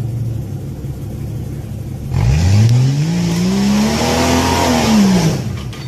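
Off-road SUV engine idling, then revving hard about two seconds in as the vehicle tries to climb a rock ledge. The engine pitch climbs, holds, and drops away near the end, with a harsh rushing noise alongside the revving.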